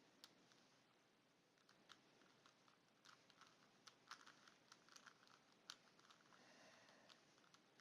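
Faint, irregular plastic clicks and clacks of a 3x3 Rubik's Cube having its layers turned by hand.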